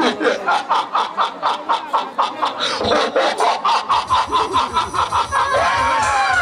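A man's long, exaggerated laugh into a stage microphone: an even run of 'ha' beats, about five a second, ending near the end in a falling, drawn-out cry.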